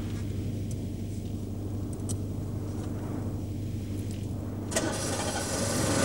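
Car engine running with a steady low hum and a few faint clicks. About three-quarters of the way in, a louder engine sound starts up sharply and keeps growing.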